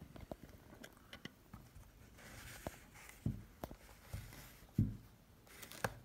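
Handling noise from multimeter test probes and a plastic doorbell chime housing: scattered light clicks and taps, with two dull thumps in the second half as the loudest sounds and faint rustling in between.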